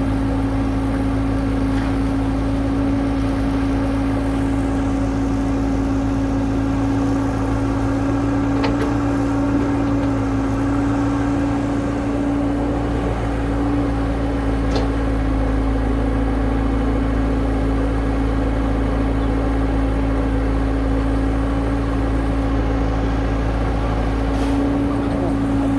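Hydraulic excavator's diesel engine running steadily at constant speed, with a strong even hum and a few faint clicks.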